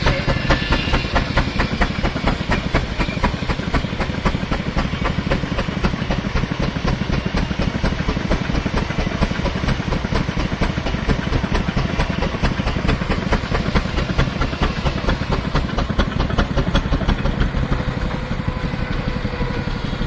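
Steam traction engine running steadily under load, driving a saw bench by belt, with a rapid, even exhaust beat and a hiss of steam.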